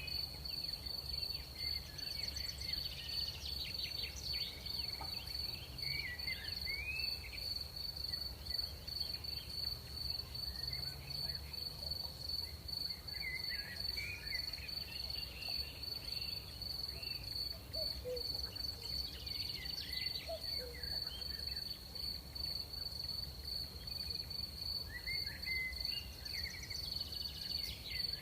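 Night insects, crickets, keep up one continuous high-pitched trill. Clusters of short chirps rise and fall over it every several seconds, and a faint low rumble runs underneath.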